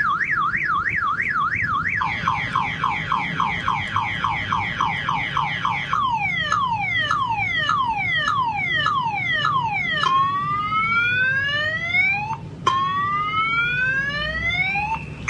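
Electronic siren switching between tones about every four seconds. First a fast up-and-down warble, then quick falling sweeps about four a second, then slower falling sweeps about two a second, then long rising wails. A single sharp click comes about four-fifths of the way through.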